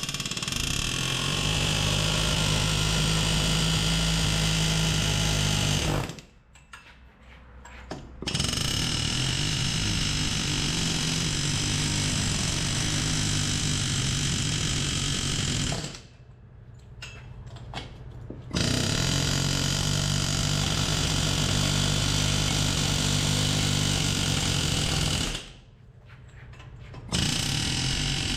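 Pneumatic air hammer running in long bursts of six to eight seconds with three short pauses between, hammering on a 2014 GMC Terrain's corroded wheel hub bearing to break it loose from the knuckle.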